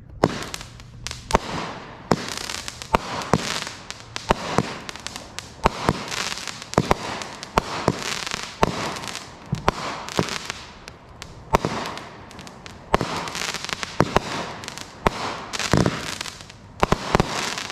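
A 16-shot, 200-gram Boomin Bulldog 'Purplicious' consumer firework cake firing shot after shot, about one a second. Each shot gives a sharp lift thump or report, followed by a spread of crackling from the bursting stars.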